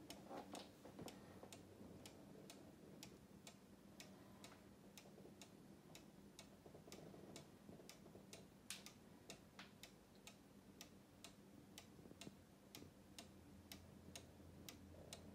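Faint, even ticking of a one-day mechanical cuckoo clock's pendulum escapement, a couple to three ticks a second.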